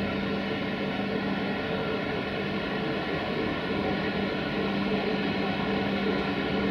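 CFR class 060-EA1 (LE5100kW) electric locomotive moving slowly, giving a steady hum with several steady tones, growing slightly louder in the last few seconds as it comes closer.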